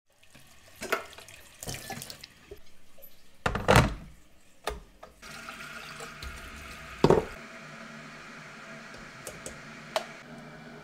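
A few knocks and clatters, then water running steadily from about five seconds in, like a tap filling a sink, with a couple more knocks over it.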